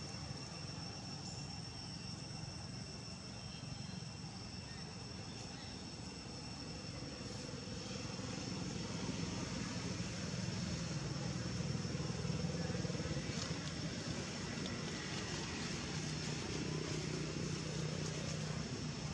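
Outdoor background noise: a low steady hum that swells a little about halfway through, under a thin steady high-pitched whine.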